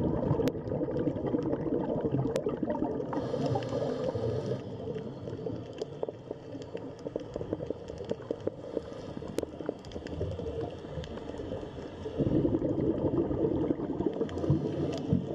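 Underwater sound: bubbling, gurgling water with many small crackling clicks, growing louder again near the end.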